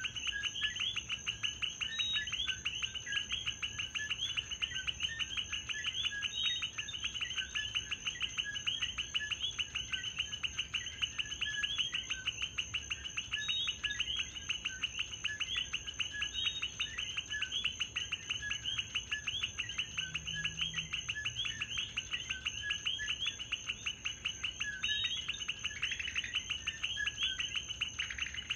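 Dense night chorus of coquí frogs: many overlapping chirping calls repeating fast, with no break. A steady high-pitched whine sits above them.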